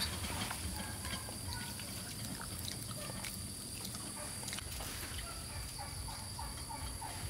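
Soft clicks and rustles of fingers pulling ripe jackfruit bulbs apart. Underneath run a steady high-pitched whine and a few faint short calls like poultry.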